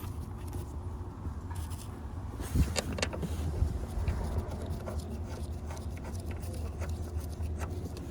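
Scattered metal clicks and knocks of the front seat-mounting bolts being fitted by hand, the sharpest about two and a half and three and a half seconds in, over a steady low rumble.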